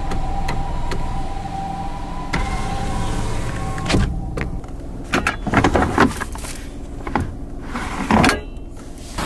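Daihatsu Move Canbus power-window motor running with a steady whine that steps up slightly in pitch partway through, then stops with a knock about four seconds in. Several sharp clicks and knocks follow.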